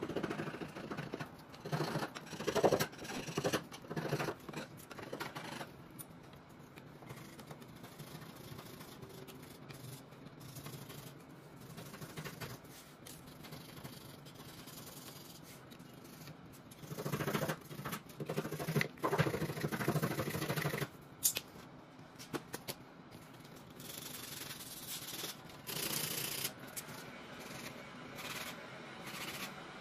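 Putty knife scraping dried white wood filler off a repaired crack in a wooden tabletop, in short repeated strokes. One burst of strokes comes in the first few seconds and another about two-thirds of the way in, with lighter scraping between and a single sharp click just after the second burst.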